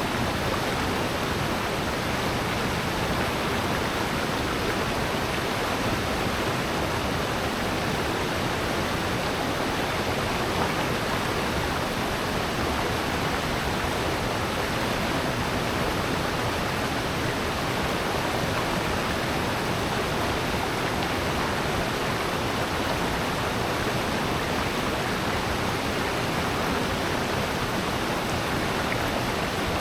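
Water in a rocky gorge rushing steadily, a constant, even rush with no breaks or separate splashes.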